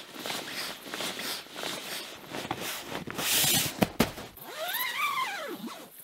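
Inflatable sleeping pad being handled and pressed on the tent floor: crinkly rustling and creaking of its synthetic fabric, a short hiss and a couple of sharp clicks, then one drawn-out squeak that rises and falls in pitch.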